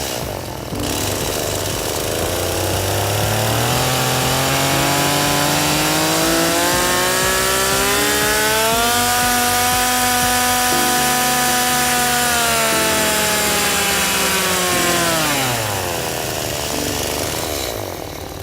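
Chainsaw engine revving up slowly, holding at high revs for several seconds, then dropping back down to a lower idle near the end.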